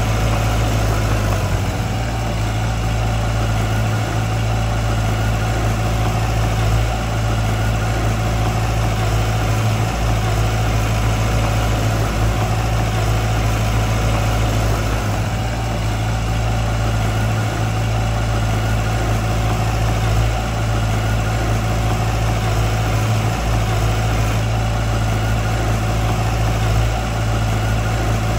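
Diesel engine of heavy earthmoving machinery running steadily, with a deep, constant low hum.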